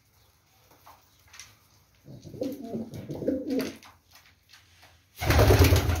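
Racing pigeons cooing in low, wavering calls for about two seconds in the middle. Near the end comes a loud, noisy burst lasting about a second.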